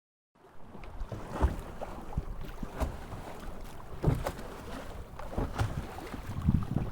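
Strong wind buffeting the microphone aboard a Flow 19 sailboat under way, with water rushing past and several louder thumps of the hull meeting waves. The sound cuts in abruptly just under half a second in.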